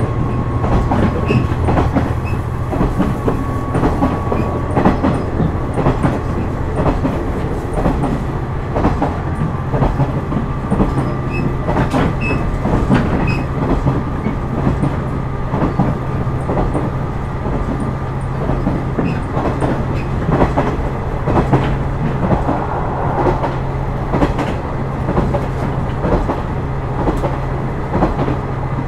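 JR West KiHa 126 series diesel railcar running: a steady low engine drone under a rhythmic clickety-clack of the wheels passing over rail joints.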